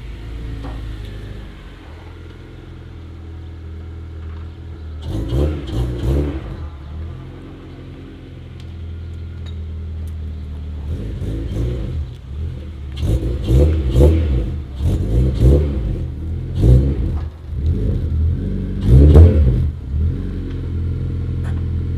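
A car engine idling steadily, with the throttle blipped into short revs several times; the loudest rev comes near the end.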